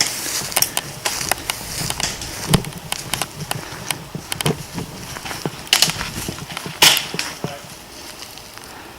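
Footsteps crunching through dry brush and grass, with irregular crackles and snaps of twigs and vegetation; the sharpest snap comes just before seven seconds in.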